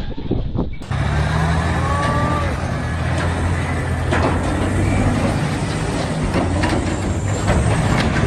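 Heavy diesel machine engine running with a steady low drone, starting abruptly about a second in.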